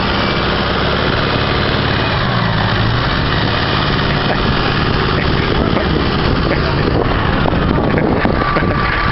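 Massey Ferguson 6445 tractor's diesel engine running hard under load as it tries to pull a loaded 14-ton trailer out of deep mud; its note wavers a couple of seconds in. A steady high tone joins near the end.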